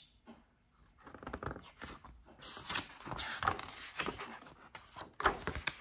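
Large pages of a picture book being turned, paper rustling and flapping, with a louder flap of a page landing about five seconds in.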